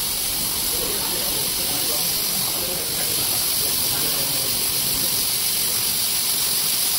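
Gravity-feed compressed-air spray gun hissing steadily as it sprays onto a foam mattress block.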